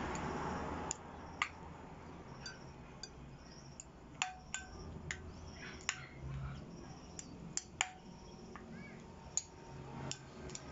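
A fork and serving spoon clink against a glass bowl in irregular sharp, ringing knocks, more than a dozen of them, as soft boiled cassava is broken up and mashed in the bowl.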